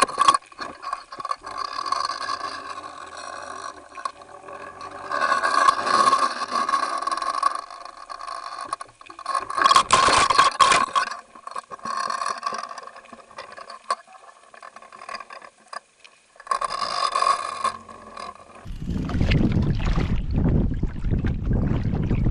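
Muffled rushing and rattling of water over an underwater camera clipped to the fishing line while a hooked tope is hauled up, with a steady whine running under it. It surges louder three times, about five, ten and seventeen seconds in. Near the end it switches to wind buffeting the microphone above the water.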